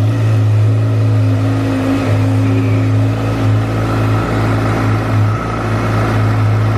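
Four-cylinder engine of a 2019 Honda CBR1000RR Fireblade running steadily at idle with a strong low hum.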